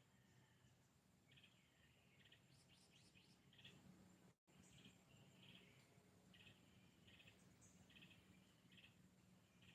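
Faint bird chirps repeating about once or twice a second, with a cluster of higher calls near the middle, over a low steady hum. The audio drops out for an instant about halfway through.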